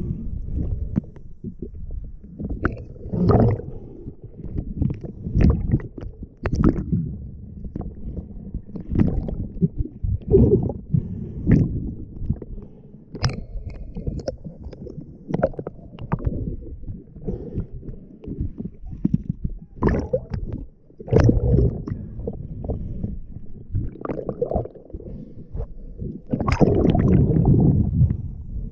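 Muffled underwater water noise picked up by a diver's camera: a low, dull wash with short swishes of moving water every second or two, and a longer, louder rush of water near the end.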